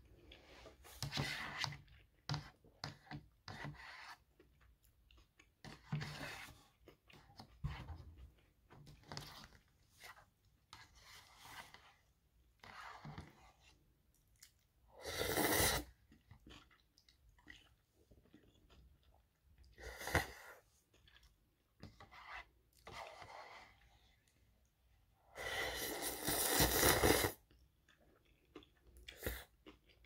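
A person eating instant ramen: irregular chewing and mouth noises, with two long slurps of noodles or broth from the bowl, about fifteen seconds in and a longer, louder one about twenty-six seconds in.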